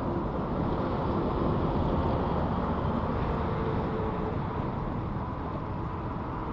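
Wind buffeting the microphone in a steady low rumble, with a faint hum about halfway through.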